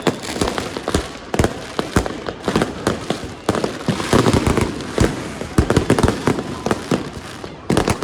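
Fireworks going off in a dense, continuous barrage: many overlapping bangs and crackles at irregular intervals, several a second.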